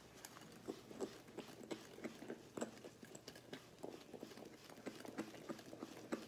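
Wire whisk beating thick pastry cream in a glass bowl: soft wet strokes, about two or three a second, as the lemon juice is mixed into the cream.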